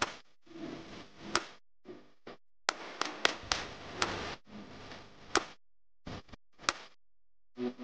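Silicone spatula stirring a thick mashed-potato and egg batter in a bowl: wet scraping in short bursts, with several sharp taps against the bowl.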